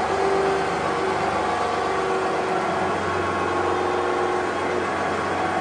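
Small electric winch motor running steadily under remote control: a continuous motor whine over a low hum.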